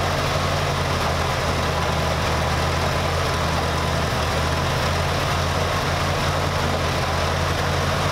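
Farm tractor's engine running steadily while its front loader lifts a load on a strap.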